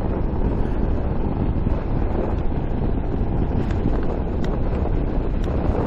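Wind buffeting the microphone of a rider on a moving motorcycle, a steady low rush.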